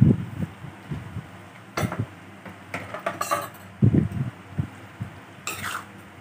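Metal ladle knocking and scraping against an aluminium wok while stirring jackfruit pieces into a thick curry. It gives irregular clinks and low knocks about a second apart.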